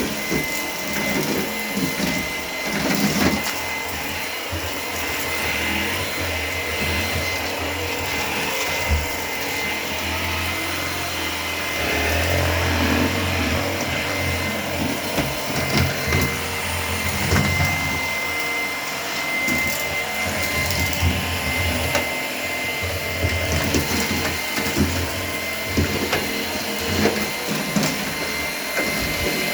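Shark PowerDetect vacuum cleaner running on an area rug: a steady high motor whine over a low hum, with scattered small knocks and clicks as it is pushed across the rug.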